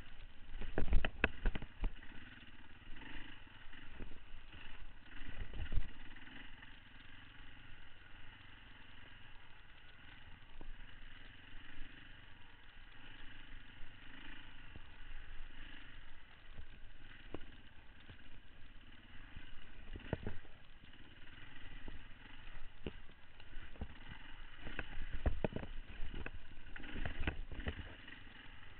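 Beta 525 RS enduro bike's single-cylinder four-stroke engine running at low, fairly steady speed on a rough trail. Sharp knocks and clatter of the bike jolting over bumps break in repeatedly, loudest about a second in, around the middle and near the end.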